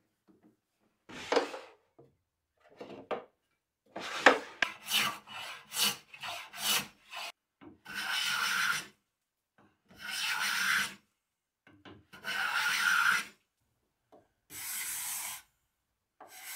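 A bench hand plane and then a card scraper worked along a hardwood strip clamped on a workbench. First come uneven short scrapes and a few knocks, then five long, even strokes of about a second each, roughly two seconds apart.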